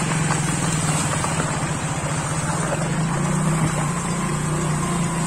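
Motorcycle engine running steadily at an even pitch, with a general wash of noise behind it.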